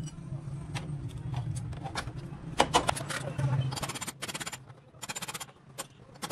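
Hammer striking a chisel against a rust-rotted steel rocker panel, chipping out corroded metal. The blows are sharp metallic knocks, loudest about three seconds in, followed by two quick runs of rapid light taps, over a steady low hum.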